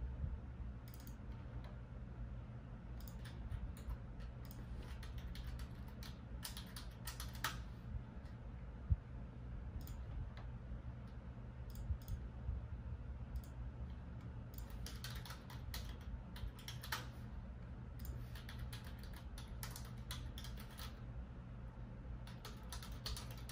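Typing on a computer keyboard in irregular runs of keystrokes with pauses between, over a steady low hum.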